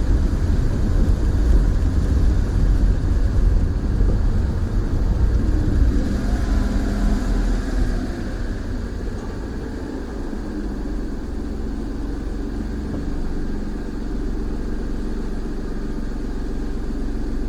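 Car engine and road noise heard from inside the moving car: a steady low rumble that eases slightly about eight seconds in.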